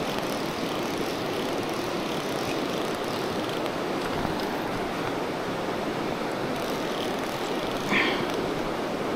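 Steady rush of a shallow, rocky river flowing over stones, with one brief, sharper sound about eight seconds in.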